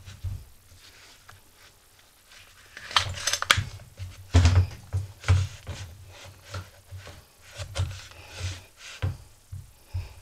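Handling noise from a Homelite string trimmer being reassembled: the plastic housing and metal shaft knock, click and rub against each other and the bench. The noises come irregularly, loudest around three to four and a half seconds in.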